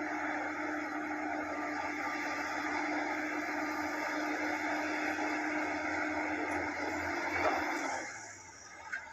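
Bulldozer's diesel engine running steadily with a constant hum, dropping away sharply about eight seconds in.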